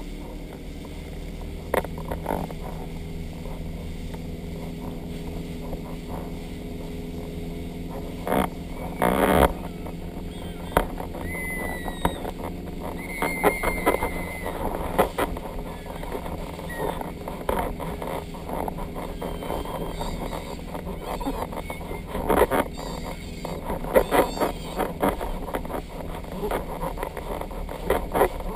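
Motorboat engine running steadily at speed, with wind and water rush over it and scattered knocks and thumps, the loudest a short bang about nine seconds in.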